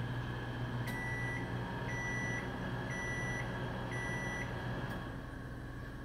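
Microwave oven running with a steady hum, then a click and four short high beeps, about one a second: the end-of-cycle signal that the timer has run out. A second click follows the beeps, and the hum goes on a little quieter.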